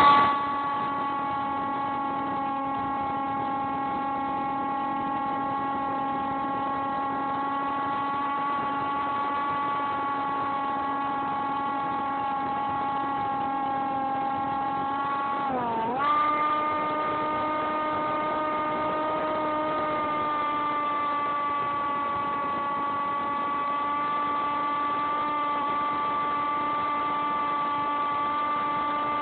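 Radio-controlled model plane's motor and propeller running at a steady whine, heard from a phone taped to the airframe. About halfway through, the pitch drops sharply for a moment, then comes back up and holds steady again.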